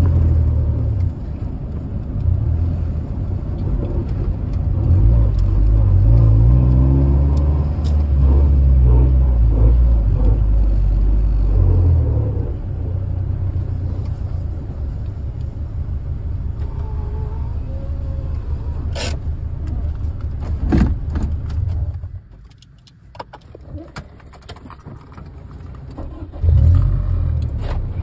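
1996 Acura Integra LS's 1.8-litre four-cylinder engine heard from inside the cabin, climbing in pitch and dropping back through the first half as the manual gearbox is worked, then running steadily. There are a couple of sharp clicks in the middle. Near the end the engine sound drops away for a few seconds before picking up again.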